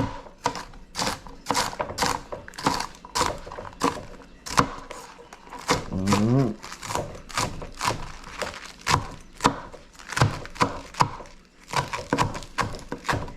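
Kitchen knife chopping bok choy on a cutting board: a run of uneven knocks, about two to three a second.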